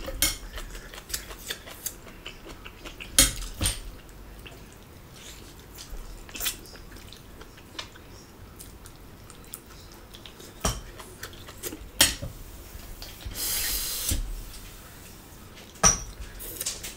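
Table eating sounds: scattered clicks and clinks of a spoon and food against ceramic plates, with a hiss lasting about a second near the end.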